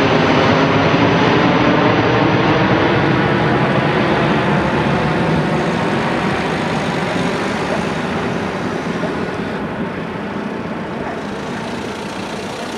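Airbus A320-232's twin IAE V2500 turbofans at takeoff climb power, a steady jet roar that fades slowly and grows duller as the airliner climbs away.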